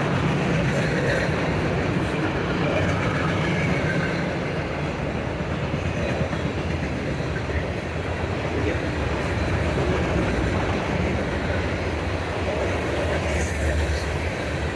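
Freight train of covered hopper cars rolling past close by: a steady rumble and rattle of the cars and their wheels on the rails.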